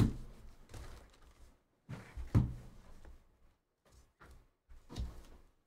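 Hard plastic trading-card holders clacking as they are set down and squared into stacks: several separate sharp knocks with short pauses between, loudest at the start and about two and a half seconds in.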